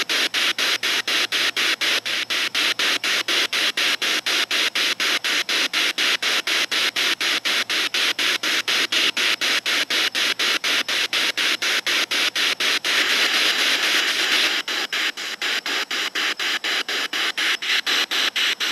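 Radio static from a spirit box sweeping through stations, the hiss cut into short pieces about four or five times a second. About two-thirds of the way in the hiss grows brighter for a second or two.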